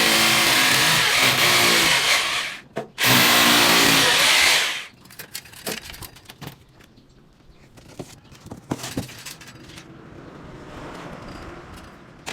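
Power drill running in two long bursts: the first is already going at the start and stops about two and a half seconds in, the second runs from about three seconds to five. Scattered light clicks and knocks follow.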